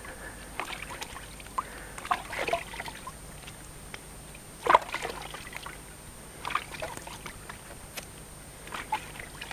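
Water sloshing and splashing in small irregular bursts, one every second or two, the loudest near the middle.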